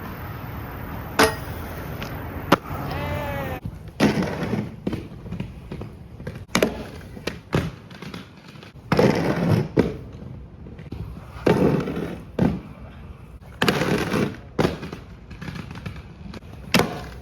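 Skateboard on pavement: sharp clacks of the board hitting the ground, with surges of rolling-wheel noise and wind buffeting the microphone.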